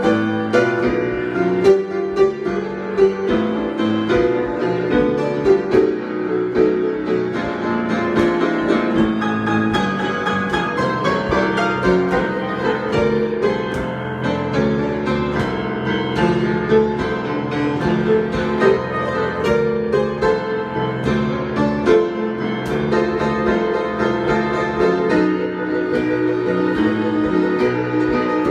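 Improvised piano playing: a continuous flow of notes and chords without a break.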